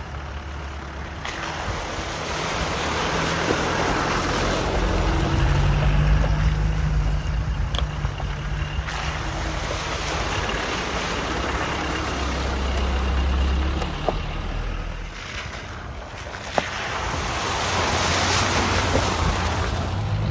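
Off-road 4x4 driving along a rough track: steady engine and tyre rumble with wind buffeting the microphone, the engine note rising and falling, and a couple of sharp knocks, the loudest about three-quarters of the way through.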